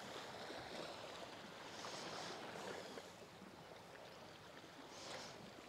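Faint wash of sea water against a rocky shore, swelling softly twice.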